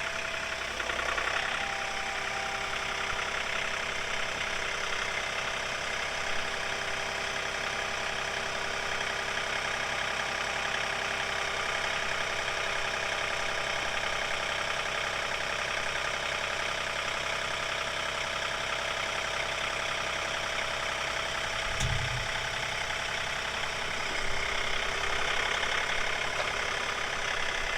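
Compact John Deere tractor's diesel engine running steadily, heard from inside the cab, with a brief low thud about 22 seconds in.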